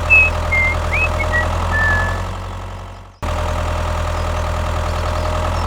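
A vehicle engine idling steadily, with a few short high chirps over it in the first two seconds. It fades out about three seconds in, breaks off briefly, and starts again at the same level.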